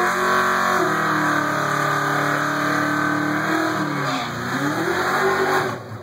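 Fox-body Mustang's 5.0 V8 held at high revs during a burnout, its rear tyres spinning and smoking. The revs hold steady for about three seconds, drop around four seconds in, then climb again.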